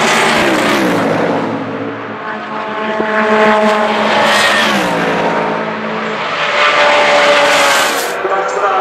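Sports prototype race cars running flat out and passing one after another, their high-revving engine notes falling in pitch as each goes by and swelling loudest twice.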